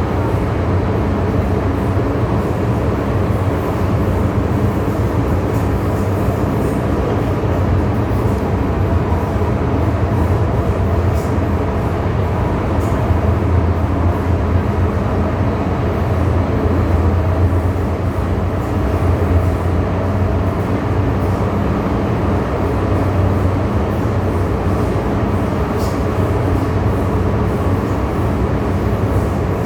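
MTR M-Train metro train running at speed, a steady continuous rumble that stays even throughout.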